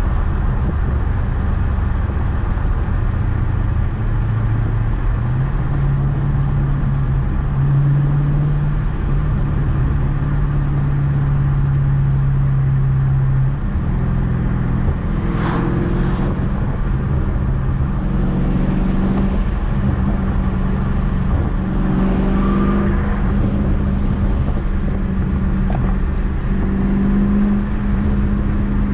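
Dodge Charger 392's 6.4-litre HEMI V8 exhaust droning steadily while cruising, heard from inside the cabin. Its pitch steps up and down a few times as the engine speed changes.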